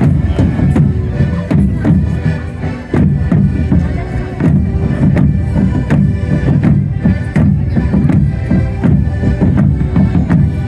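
Padstow May Day 'Oss band playing: large decorated side drums beaten in a steady rhythm under a held accordion melody, with crowd chatter.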